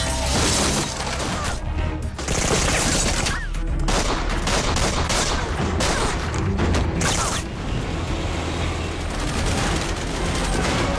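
Edited action-series soundtrack: bursts of gunfire and impacts layered over dramatic music.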